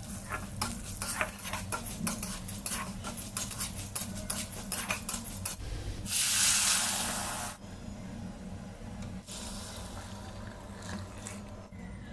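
A metal utensil clinking and scraping against a pan or pot. About six seconds in, a loud burst of sizzling starts, as on a hot griddle, and after a second and a half it settles to a quieter steady sizzle.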